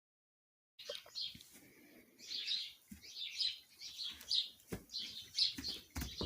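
Small birds chirping over and over, about once a second, starting about a second in, with a few sharp knocks in between.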